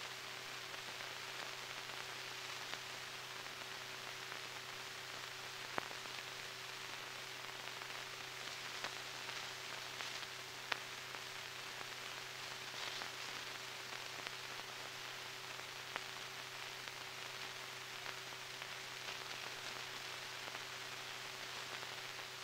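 Surface noise of an old optical film soundtrack: a steady hiss over a low hum, with scattered clicks.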